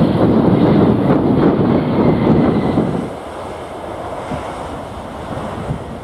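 easyJet Airbus airliner's jet engines running loud as it lands, mixed with strong wind buffeting the microphone. About three seconds in the sound drops to a quieter, steady wind rush.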